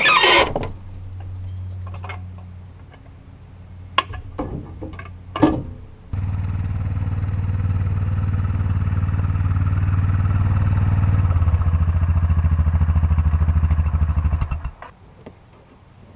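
ATV engine idling, then running hard at a steady pitch from about six seconds in for roughly eight seconds, with a couple of sharp clicks just before it picks up. It drops back off suddenly near the end. A brief loud noise comes at the very start.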